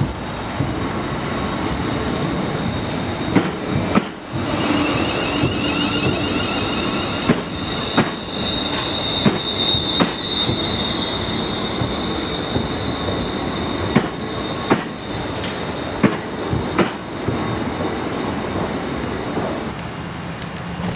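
Class 380 Desiro electric multiple unit running slowly past with a high steady squeal, loudest a third of the way through. About a dozen irregular sharp clicks sound as the wheels cross rail joints and points.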